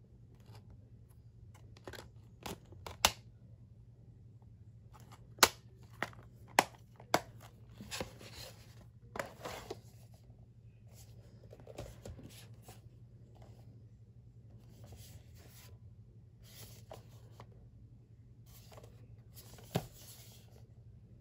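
Black plastic Blu-ray case and its cardboard slipcover being handled: a run of sharp plastic clicks and snaps as the case is worked shut, then the slipcover sliding and rustling, with one more click near the end, over a steady low hum.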